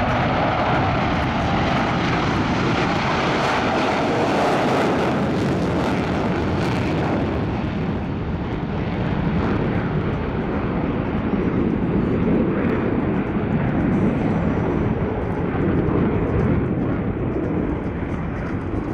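A fixed-wing aircraft's engines running loud overhead. The sharp high part of the noise fades about seven seconds in, leaving a lower, steady rumble as the aircraft moves off.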